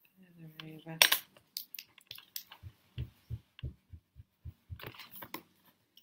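A pencil set down on the desk with a sharp click, then a Mono plastic eraser rubbed back and forth over paper, its strokes knocking about three times a second on the tabletop, and a clatter near the end as the eraser is put down.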